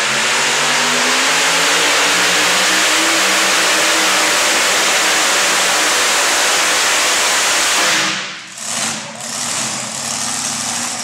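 Supercharged alcohol-burning engine of a modified 4x4 pulling truck, loud and steady at full throttle as it pulls down the track. About eight seconds in the throttle is cut and the engine falls away to a lower idle.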